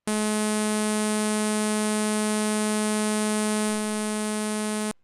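Behringer 2600 analogue synthesizer oscillator sounding one steady, bright buzzing tone at a fixed pitch. It starts abruptly, drops slightly in level near the end, and cuts off suddenly.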